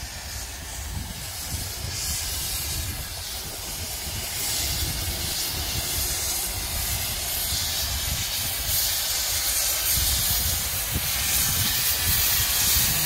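Mallet steam locomotive hissing steam as it moves slowly, growing gradually louder as it comes closer.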